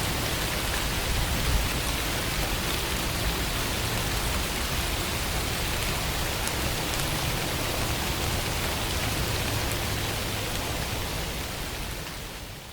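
Steady rain falling, an even dense hiss of many drops, fading out near the end.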